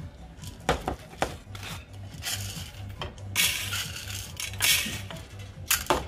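Clear plastic crinkling as it is handled, with a few sharp clicks and clinks of small parts, over background music with a steady low beat.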